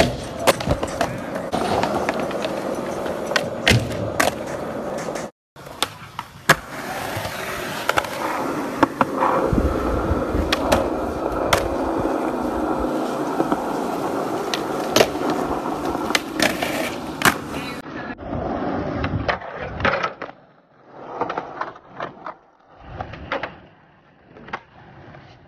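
Skateboard wheels rolling on concrete, broken by sharp clacks of the board popping, landing and striking ledges. After a cut about 18 seconds in come quieter, separate scrapes and clacks as the board slides along a bench.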